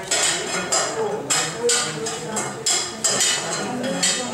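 Metal utensils and cookware clinking and knocking against pots and dishes, several sharp ringing hits a second in an uneven rhythm.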